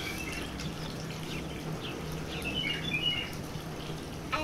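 Small birds chirping in short, quick phrases, over a steady low hum.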